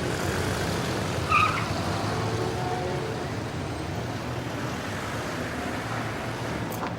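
Steady road-traffic rumble, with a short high squeak about a second and a half in.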